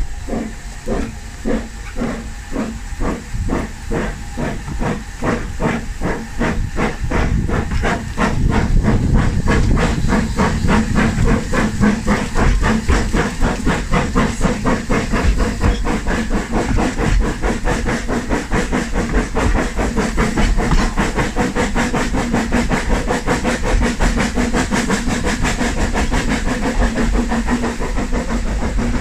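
Double Fairlie narrow-gauge steam locomotive David Lloyd George working hard as the train gathers speed: its exhaust beats start slow and quicken into a rapid steady chuff, getting louder about eight seconds in, with steam hissing throughout.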